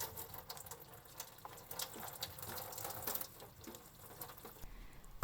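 Water running faintly over sliced fried tofu in a sink to wash off its excess factory-applied oil, with small irregular splashes.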